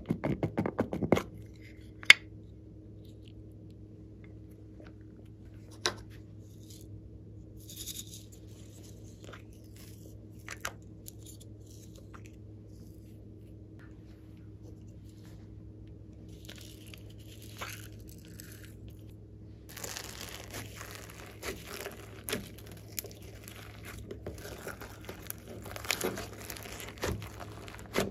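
Hard plastic containers handled with sharp clicks and taps. Then, from about twenty seconds in, floam slime full of foam beads crackles and crunches as it is pressed and kneaded by hand.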